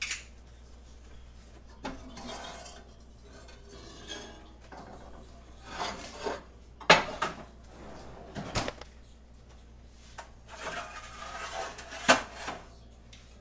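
A metal spoon scraping inside a heavy enamelled cast-iron Dutch oven and clinking against it as food is spooned out, with several sharp clinks, the loudest about seven seconds in.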